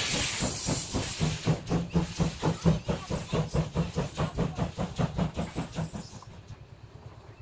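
Steam locomotive at close range: a burst of steam hiss, then a quick, even run of beats, about four to five a second, that fades away about six seconds in.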